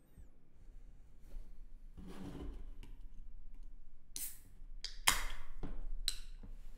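Soft clicks and handling noises close to a microphone at a computer desk: a breathy hiss about two seconds in, then several sharper single clicks in the second half.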